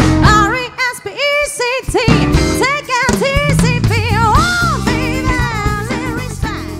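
Live band playing a soul-funk cover, a singer holding wavering notes over drum kit, bass and guitar. The music fades down near the end.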